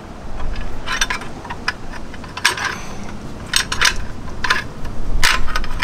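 Irregular metallic clinks and taps as bolts are worked through the metal mounting bracket of a FlexStep Pro boat-trailer step. There are a handful of short, sharp clicks spread a second or so apart.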